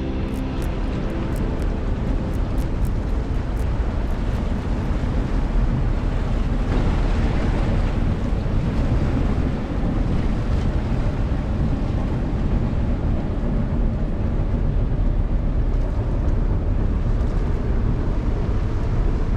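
Wind rushing on the microphone over the low, steady rumble of a container ship passing along the canal.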